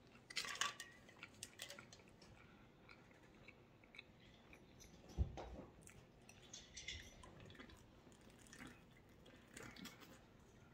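A man drinking water from a water bottle: small clicks of the lid being opened in the first second, then faint swallowing, with a soft thump about five seconds in.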